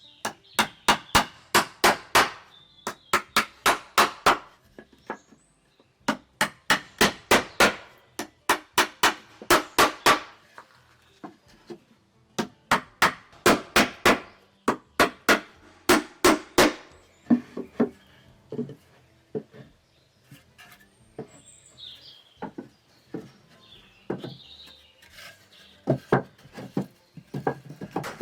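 Hammer blows on wood in quick runs of about four or five strikes a second, a second or two of hammering at a time. In the second half the strikes are softer and more spaced out.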